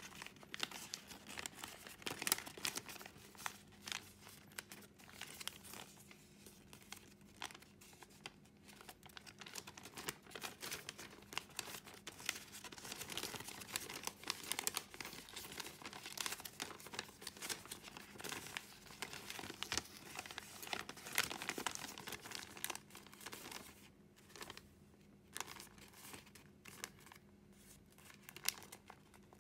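A sheet of origami paper crinkling and rustling as it is handled, folded and creased by hand, with many small irregular crackles. The handling grows sparser and quieter near the end, over a faint steady hum.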